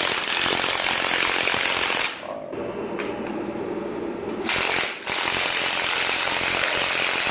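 Milwaukee M18 cordless impact wrench hammering as it tightens the bolts on parallel-groove connectors joining service cables. It runs in bursts: it eases off about two seconds in, comes back hard about four and a half seconds in, breaks off briefly near five seconds, then hammers on steadily.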